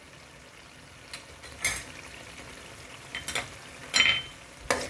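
Onion-tomato puree masala frying in oil in a pan while it is stirred: a quiet sizzle under several sharp knocks and scrapes of the spoon against the pan, loudest near the end. The masala is being fried until its raw taste cooks off.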